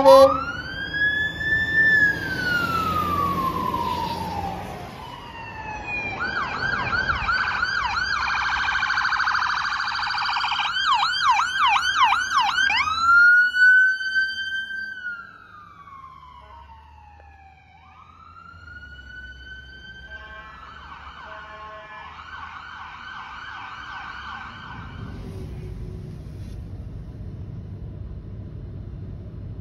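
Emergency vehicle sirens from a fire engine and an ambulance: a slow wail that rises and falls, switching to a fast yelp of rapid up-and-down sweeps, back to a wail, then a fainter yelp. A low engine rumble is left near the end as the siren drops away.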